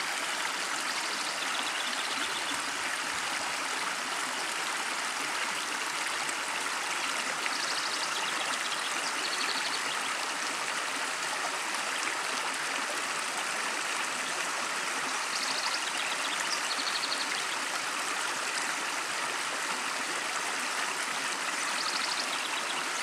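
Creek water running and splashing over rocks and a small log dam, a steady rushing. Short high chirps recur every few seconds.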